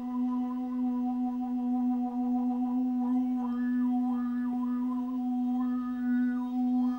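Large glass bowl partly filled with water, made to sing at its rim: one steady low tone with a ladder of higher overtones above it that waver and change. The upper overtones brighten around three seconds in and again near the end.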